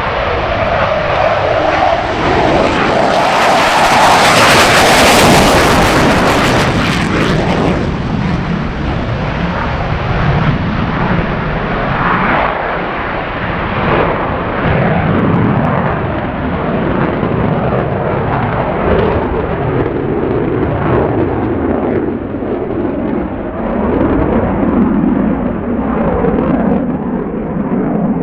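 F-15 fighter's twin jet engines at high power during a takeoff and steep climb. The jet noise is loudest and harshest a few seconds in as the jet passes, then grows duller and fades as it climbs away.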